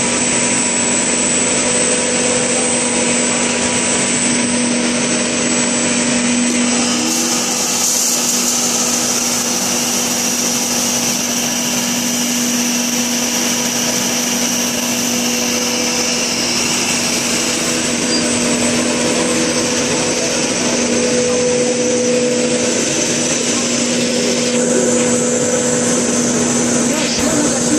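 LDPE blown-film extrusion line running: a steady drone of its electric motors and blowers, with a constant hum and a high whine. A brighter hiss joins about seven seconds in.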